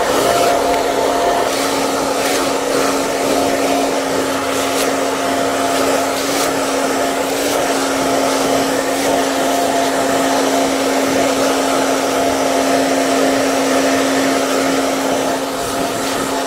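Hair dryer running steadily: a constant motor hum over the rush of blown air.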